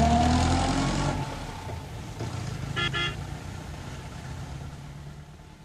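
Car engine revving, its pitch rising over the first second, then the rumble fading away steadily; two short horn toots sound about three seconds in.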